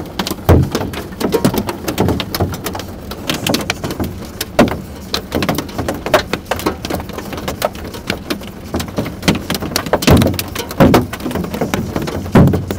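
Heavy rain with hail: a steady rain hiss packed with many sharp ticks and knocks of hailstones striking hard surfaces, with a few loud close hits about half a second in, near the middle and near the end.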